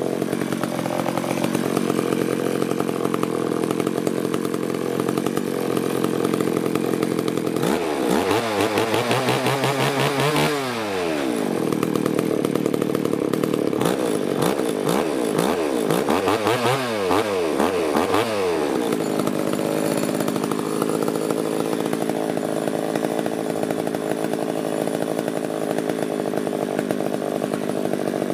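Two-stroke chainsaw engine, bar and chain removed, idling steadily. About eight seconds in it is revved up and back down once, then blipped several times in quick succession, and it settles back to idle. It is being test-run for unstable running that persisted after a carburettor cleaning.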